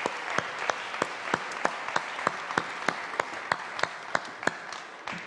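Studio audience applauding, with sharp claps standing out about three times a second over the crowd's clapping; the applause fades toward the end.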